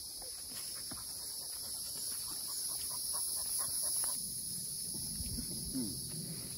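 Steady insect chorus: a continuous high-pitched buzz held at two pitches, one high and one higher still.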